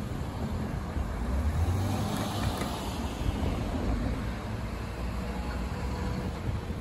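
Road traffic going by: a steady rumble of vehicles.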